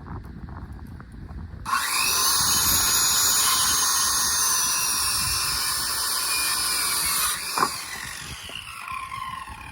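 Sawmill blade cutting through boards for batten strips. The loud cutting noise starts abruptly about two seconds in, with a high whine that slowly sinks in pitch for about five seconds. It drops away as the blade leaves the wood, followed by a falling whine and a sharp clunk, then the mill runs on more quietly.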